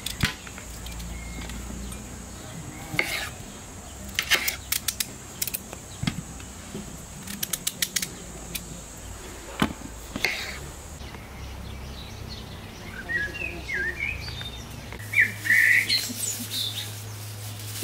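Kitchen knife chopping tomatoes on a wooden cutting board, in short runs of quick taps. In the second half, birds chirp.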